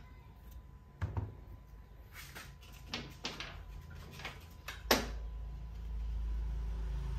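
Hand-fitting a metal belt-sander attachment onto a cordless angle grinder head, with parts handled on a steel bench: a thump about a second in, then a few sharp metallic clicks, the loudest near five seconds. A steady low hum rises after that. The grinder itself is not running.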